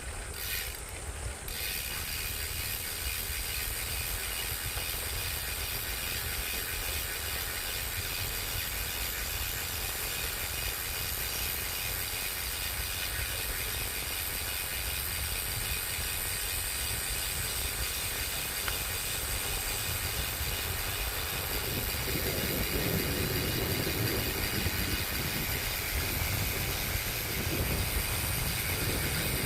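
Steady, high-pitched insect chorus, a layered buzz of several tones, over a low rumble. About two-thirds of the way through, a rougher, louder noise joins it.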